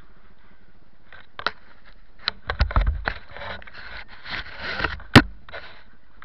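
Rustling, scraping and knocking of a body-worn camera being jostled and handled, a string of irregular clicks and scrapes with one sharp knock about five seconds in.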